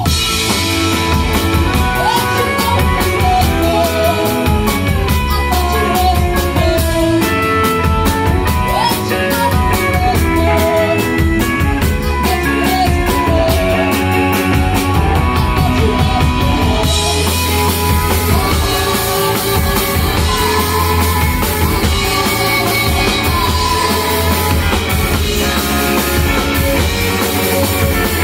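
A rock band playing live: a woman singing lead over electric guitars and a drum kit.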